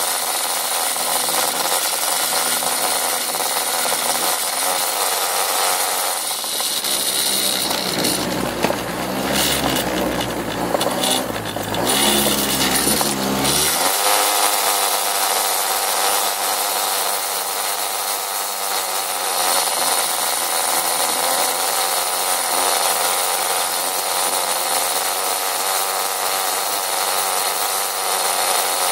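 Small scooter engine running as the scooter rides along. Between about 6 and 14 seconds in, the engine note deepens and its pitch rises and falls with changes in speed.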